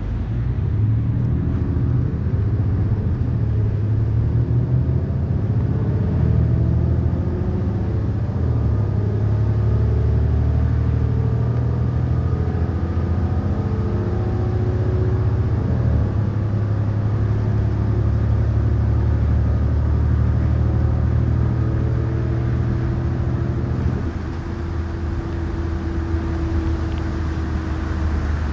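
Cummins L9N natural-gas engine and ZF EcoLife automatic transmission of a 2019 New Flyer XN40 transit bus, heard from inside the cabin, pulling away and accelerating. A whine rises in pitch several times as the bus gathers speed. About 24 seconds in the sound drops to a quieter, steadier hum.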